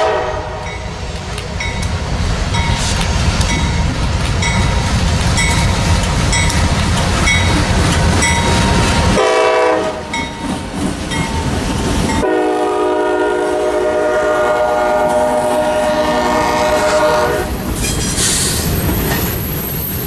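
Diesel freight locomotive air horn and passing train: the end of a horn blast at the start, then a low rumble of wheels on rail with evenly spaced clicks, a short horn blast about nine seconds in, and a long, steady multi-note horn blast from about twelve to seventeen seconds in.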